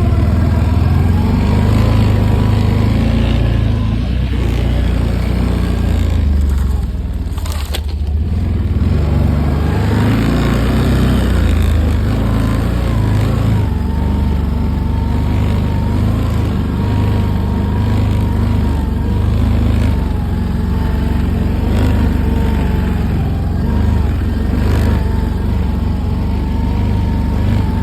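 A motor vehicle running steadily, with a heavy low rumble and a wavering whine, dipping briefly about seven seconds in.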